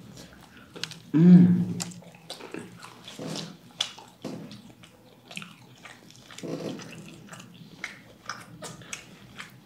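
Close-miked eating of fried chicken nuggets: biting, crunching and chewing clicks with wet mouth sounds, and a short hummed voice sound about a second in.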